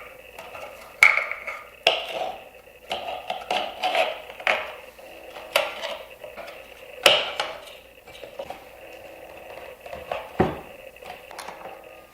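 Irregular metallic clicks and clanks from hands working on a WEN 94396 portable bandsaw, loosening the blade tension and fitting a new bandsaw blade, with a duller knock near the end.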